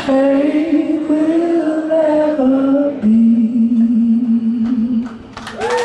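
Male rock vocalist singing long, held notes at the end of a song, the last one lower and held for about two seconds. Near the end the crowd breaks into cheering.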